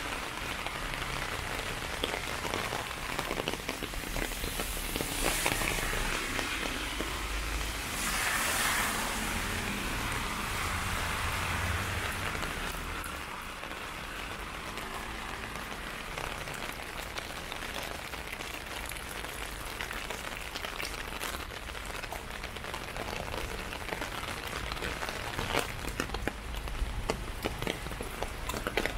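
Heavy rain falling on a clear umbrella held overhead, a dense stream of small drop hits. A low rumble in the first part, with two swells of wash around five and eight seconds in, fades out a little before halfway.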